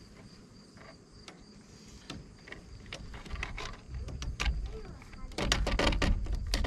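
A tight-fitting PVC end cap being twisted and wrenched off the top of a PVC pipe. Low rubbing comes first, then a quick run of creaking, scraping clicks near the end as the stuck cap gives. Crickets chirp faintly throughout.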